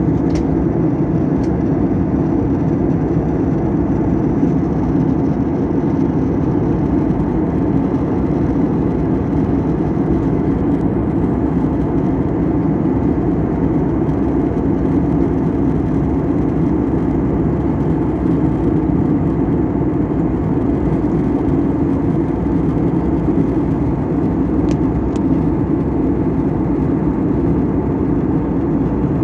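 Steady cabin noise of a jet airliner in flight: the even drone of the engines and the air rushing past the fuselage.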